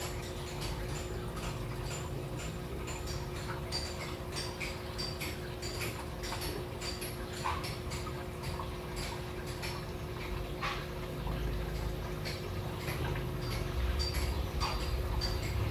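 Steady low hum with many small, irregular clicks and ticks, a few a second.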